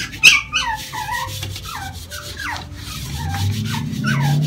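Pomeranian whining: a sharp yip about a quarter second in, then a run of short whimpers that bend up and down in pitch. Under it, a cloth scrubs a paste across the tarnished brass pan of an antique scale with a scratchy rubbing.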